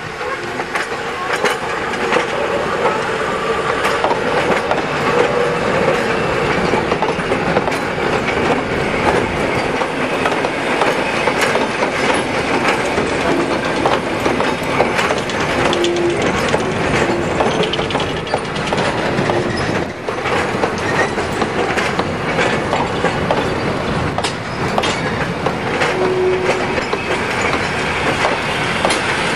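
Railway wagons and carriages of a mixed train rolling past, wheels clattering over the rail joints in a steady run of knocks and rattles, with a couple of brief wheel squeals.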